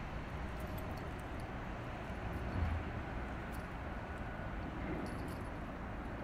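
Steady low rumble of outdoor waterfront ambience, with a brief low thump about two and a half seconds in.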